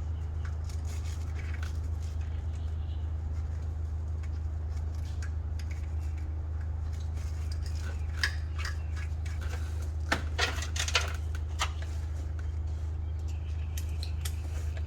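Light metallic clinks and taps of bolts and hand tools being handled, mostly in a cluster from about eight to eleven seconds in, over a steady low hum.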